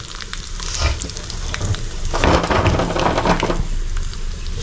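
Mustard seeds, curry leaves and dried red chillies sizzling in hot oil in a small pan: a South Indian tempering (tadka) before it is poured into the curry. The sizzle is steady and swells louder for a stretch in the middle.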